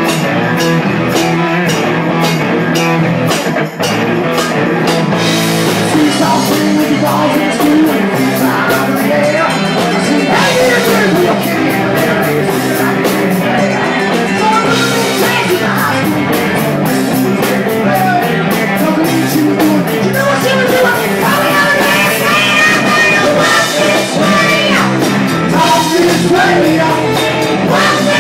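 Live rock band jamming loudly: electric guitar over a drum kit.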